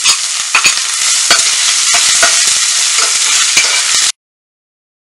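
Freshly added chopped onions sizzling in hot oil in a steel pan, with a slotted steel ladle scraping and clicking against the pan as they are stirred. The sound cuts off abruptly about four seconds in.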